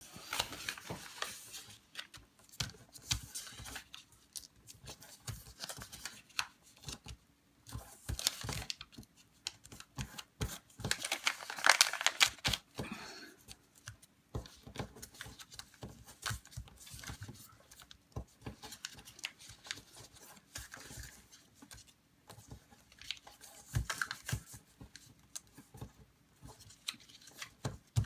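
A sheet of thin printed paper being folded and creased by hand on a wooden tabletop: on-and-off rustling and crisp creasing with small taps. The loudest, longest rustle comes about twelve seconds in.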